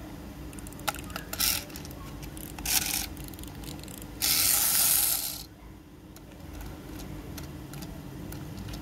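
Clicking and rattling of a plastic toy boat's parts as its motor and propeller unit is fitted and worked by hand, with a louder noisy burst lasting about a second about four seconds in.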